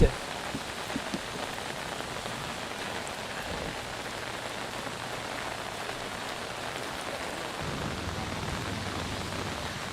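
Steady heavy rain falling during a monsoon flood, with an even hiss and patter. A faint low hum joins about three-quarters of the way through.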